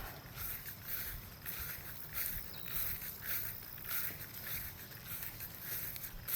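Footsteps of someone walking along a dirt and grass trail, about two steps a second, over a low steady rumble.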